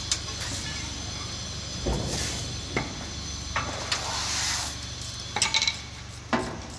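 Steady machinery hum of a spinning-mill hall, with a handful of short metal clicks and knocks from hand work on the base of a ring spinning frame being installed.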